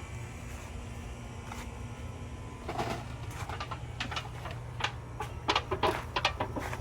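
Freshly dug potatoes being handled in a container: a run of irregular knocks and clatters starting about three seconds in, loudest near the end, over a steady low hum.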